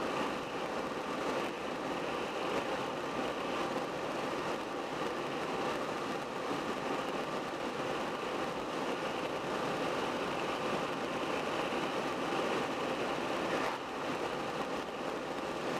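Car cruising at a steady speed: even tyre and wind noise, with the engine underneath, dipping briefly near the end.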